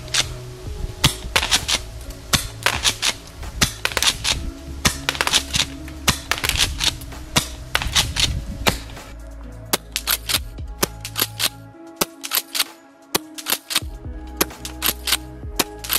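Golden Eagle 8877RW gas airsoft shotgun, a Remington M870 replica, fired again and again. Sharp cracks of the shots mix with the clacks of the pump being racked between them, over background music.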